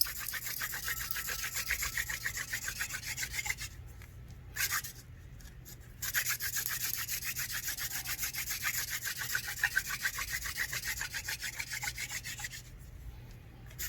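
Hand-drill friction fire: a wooden spindle spun fast between the palms, grinding in the notch of a palm-frond hearth board with a rapid rhythmic rubbing. It breaks off twice for a second or two as the hands go back up the drill. The grinding wears the wood into a powder that should heat up into a glowing coal.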